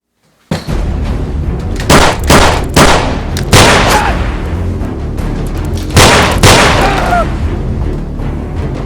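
Dramatic music starting abruptly after silence, with a steady low pulse and loud, sharp boom-like hits: four close together in the first few seconds and two more about six seconds in.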